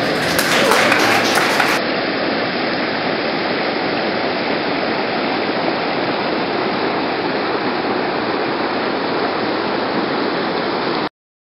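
Steady rushing of river water, an even hiss with no tune in it, which cuts off suddenly near the end.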